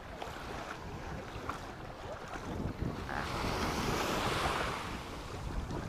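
Small waves washing up a pebbly shore. One wave surges up with a rising hiss about three seconds in, then fades. Wind rumbles on the microphone.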